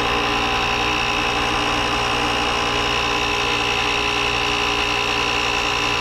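A small motor running steadily, with a constant high whine over a steady hum.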